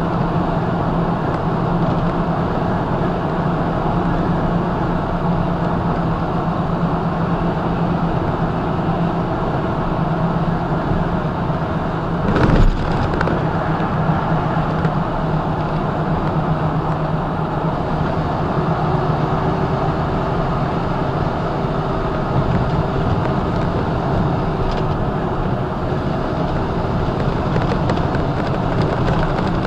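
Semi truck cruising on the highway, heard from inside the cab: a steady diesel engine drone over tyre and road noise. A single thump about twelve seconds in.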